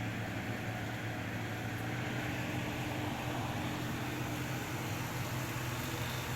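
NELGOLLE 7000 BTU portable air conditioner running: a steady rush of fan air over a low, even hum.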